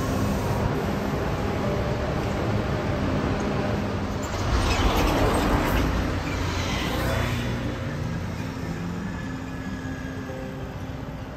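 Road traffic with a steady low engine rumble. A truck passes close by about halfway through: its noise swells, then fades away.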